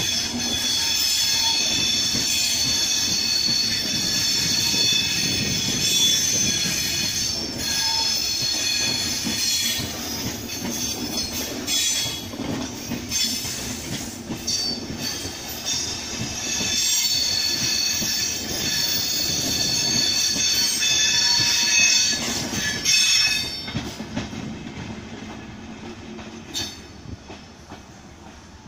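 Passenger coaches of an express train running past on the track, their wheels giving a steady high squeal over a rumble, with knocks as they cross rail joints. The sound drops away after about 23 seconds as the last coach passes and the train draws off.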